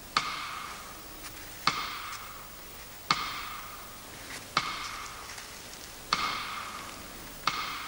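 Six sharp ticks, each followed by a short ringing tone, evenly spaced about a second and a half apart.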